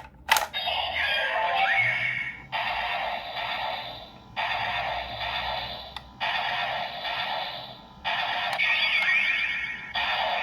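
DX Ultraman Blazar transformation toy playing its electronic sound effects and music through its small built-in speaker after a click near the start. The sound comes in a string of bursts, each about a second and a half to two seconds long, with some gliding tones. It is the sound set for the original Ultraman stone.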